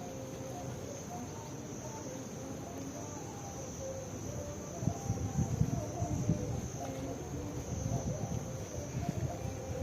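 Insects trilling in one steady high tone, typical of crickets. A low, uneven rumble with soft knocks joins from about halfway through.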